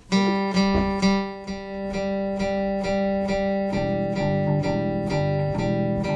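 A live band opening a song: acoustic guitar strummed in a steady rhythm over ringing chords, with bass notes coming in about halfway through.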